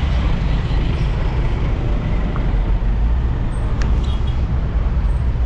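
Steady city traffic noise: bus and car engines running, with a deep continuous rumble.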